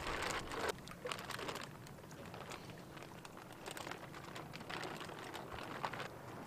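Clear plastic fish weigh-in bag crinkling and rustling in short, irregular bursts as it is handled and bass are put into it.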